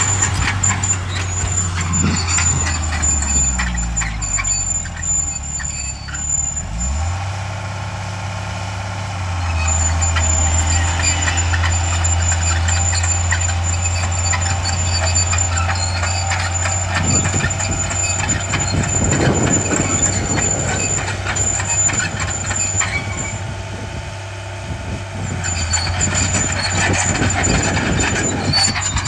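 Heavy diesel earthmoving machinery working dirt: a steady low engine drone with continual clanking and rattling, its engine note dropping a few seconds in, and a thin high whine over much of it.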